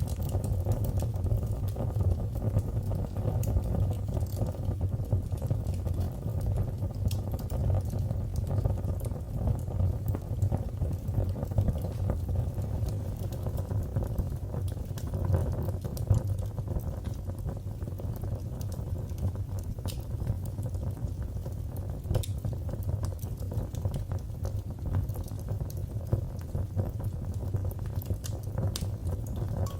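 Wood fire in a fireplace crackling, with frequent small pops and snaps over a steady low rumble of the flames.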